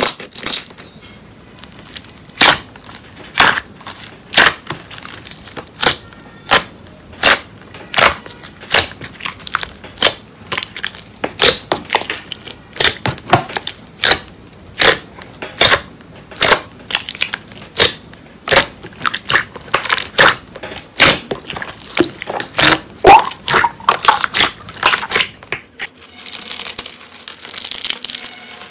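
Slime being squished and poked, giving an irregular run of sharp pops and crackles; near the end it turns into a steadier crinkling hiss.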